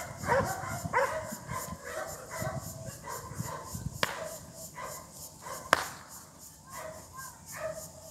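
Working dog barking in short, quick barks in the first second or so, then quieter, with two sharp cracks about a second and a half apart midway through.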